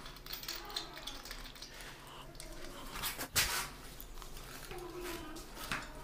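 Light clicks and scraping as a shower diverter knob is screwed by hand into the diverter's threads, with a couple of sharper clicks about three and a half seconds in.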